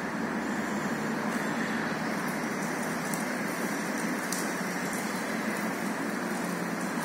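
Walk-behind petrol lawnmower engine running steadily at a distance.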